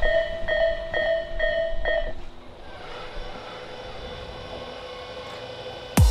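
Japanese railway level-crossing warning bell ringing its repeated 'kan-kan' at about two strokes a second, then stopping about two seconds in as the warning ends. A low steady background hum follows.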